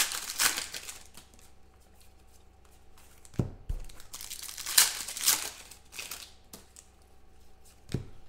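Trading cards and foil pack wrappers being handled: scattered rustling and crinkling, with two soft thumps as cards are set down on the table, one about three seconds in and one near the end.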